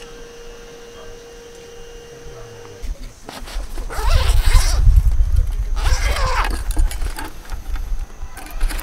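Zipper on a round padded carrying case pulled open in two long strokes, over a low rumble of handling on the microphone, with a few sharp clicks near the end. A faint steady hum comes before the zipping.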